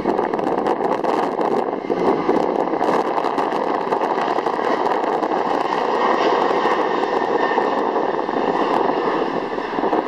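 Airbus A300-600ST Beluga's two General Electric CF6-80C2 turbofans running at takeoff thrust, a loud, steady jet roar as the freighter lifts off and climbs, with strong wind gusting on the microphone.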